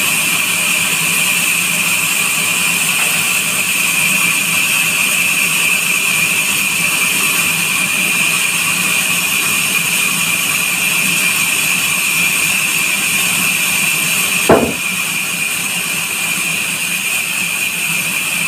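Large vertical band saw in a sawmill running and cutting through a neem log, with a steady high-pitched whine from the blade. A single sharp knock comes about three-quarters of the way through, after which the saw runs a little quieter.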